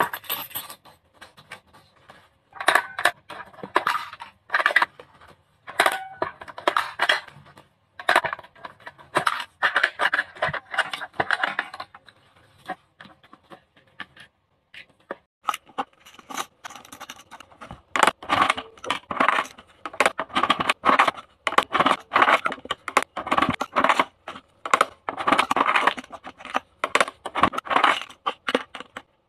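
Clicks, taps and clatters of small plastic toy pieces on a miniature toy vending machine: toy coins dropped in, buttons pressed, and small toy cans rattling out into a plastic basket. The clicks come in quick clusters with short pauses, thickest in the second half.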